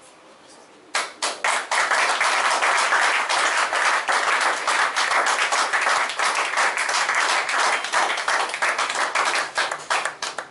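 Congregation clapping hands in applause: a few scattered claps about a second in, quickly filling out into dense clapping that stops suddenly near the end.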